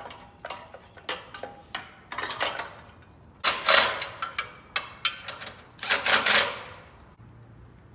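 Tools and small metal generator parts being handled: a string of clicks and knocks, with two louder clattering scrapes about halfway through and near the end.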